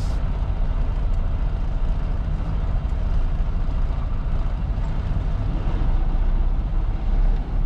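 Freightliner Cascadia semi truck's diesel engine running as the truck creeps along at low speed: a steady low rumble heard inside the cab.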